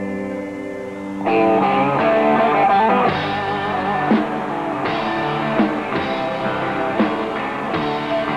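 Rock band playing live: a held guitar chord rings out, then about a second in the full band comes in with guitars and drum kit, heavy drum hits landing about every second and a half.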